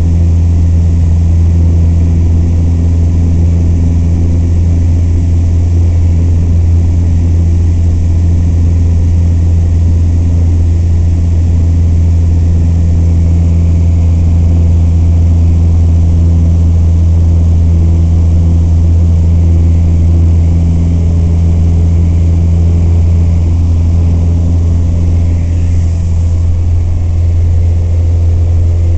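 Piper PA-28's single piston engine and propeller running steadily with a constant low drone. The overtones shift slightly about twenty seconds in.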